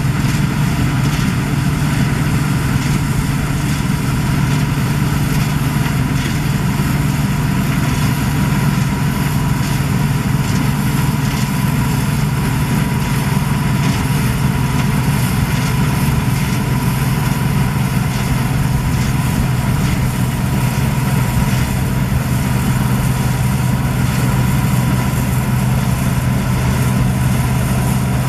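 Claas Dominator 96 combine harvester running steadily while harvesting: a constant, unchanging engine and machinery drone.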